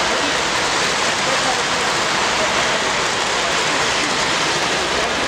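O-gauge model freight train rolling past on the layout's track, its metal wheels on the rails making a steady rushing noise, with a crowd murmuring in the hall underneath.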